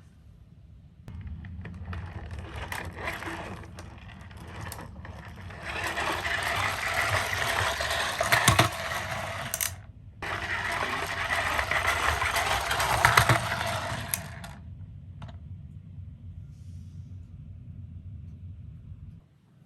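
Toy minicars rolling and rattling on a cardboard slope: two stretches of several seconds of clattering, each with a sharp knock, over a steady low hum.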